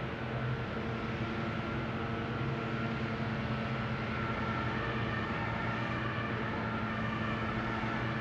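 A large engine running steadily: a low, even drone with a fainter higher whine above it, holding the same pitch throughout.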